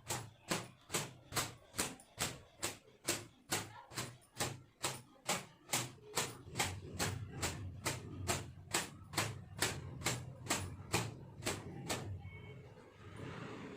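Towel striking wet hair over and over in traditional towel drying, in steady strokes a little over two a second. The strokes stop about twelve seconds in.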